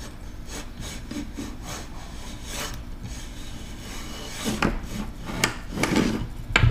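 Pull rope of a 1959 Johnson QD-20 outboard's recoil starter rubbing and scraping as it is slowly let wind back onto the pulley under the rewind spring's tension. A soft rasping rub that gets louder about four and a half seconds in.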